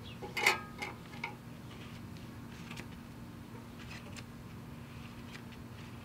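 A few light taps and clicks from handling a smartphone, the loudest about half a second in, over a faint low steady hum.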